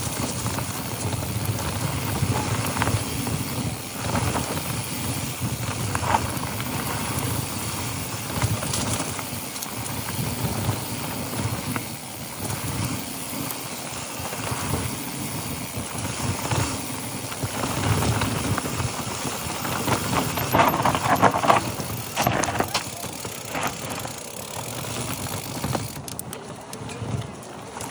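Mountain bike riding down a dry dirt trail: knobby tyres rolling over dirt and fallen leaves, and the bike rattling over bumps. The rattling is louder for a couple of seconds about twenty seconds in.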